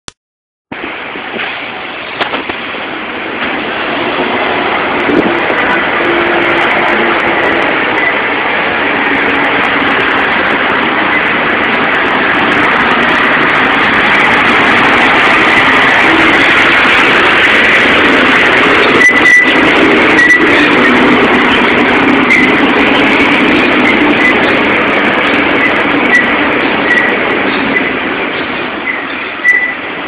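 Blue Bird trolley-style bus passing close by, its engine running. It grows louder as it approaches, peaks in the middle and eases off near the end.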